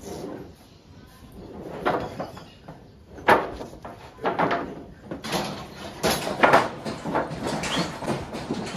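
Irregular knocks and bangs of Nelore cattle jostling in a cattle chute and hitting its boards and gates, loudest a little past three seconds in and again around six and a half seconds in.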